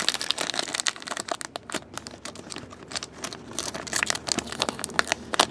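Thin clear plastic wrapping crinkling as hands handle and unwrap a trading card in a hard plastic holder: a dense, irregular run of small crackles and clicks.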